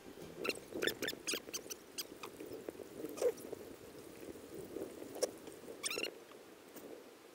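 Kayak paddling on open water: irregular light splashes and drips from paddle strokes, with a few short, high squeaky chirps, a cluster of them near the end.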